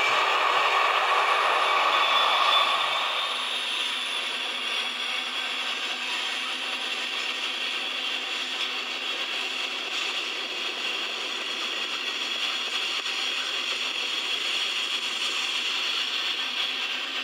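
N scale model trains running on the track: a steady mechanical whirring and rattling of small motors and wheels on rail. It is louder for about the first three seconds, then settles to a lower, even level.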